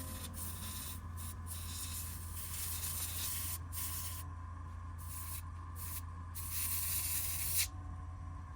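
Hissing spray in short bursts that start and stop several times, over a steady low hum, as a water-damaged laptop logic board is cleaned.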